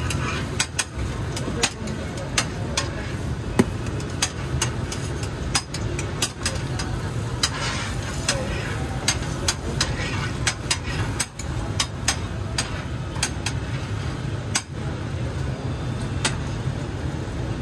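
Metal spatula clacking and scraping against a flat steel griddle as buns are turned and pressed, in irregular sharp knocks about one to three a second, over a steady low rumble.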